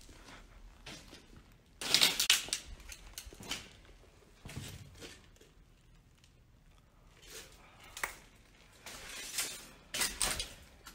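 Irregular footsteps crunching and scraping over rubble and broken boards on a floor, with scattered crackles and clatters of debris underfoot, the loudest about two seconds in.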